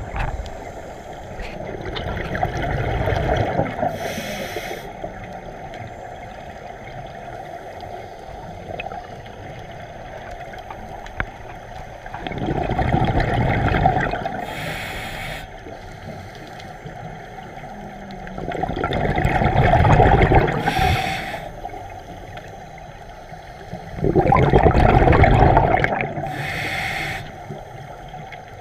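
Scuba diver breathing through a regulator underwater: four breaths about six seconds apart, each a loud rush of exhaled bubbles followed by a short high regulator hiss.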